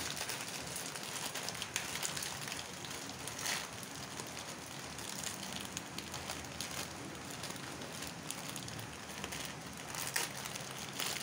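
Water in a metal saucepan on a gas burner heating to the boil: a steady hiss with crackling and popping bubbles, boiling hard near the end.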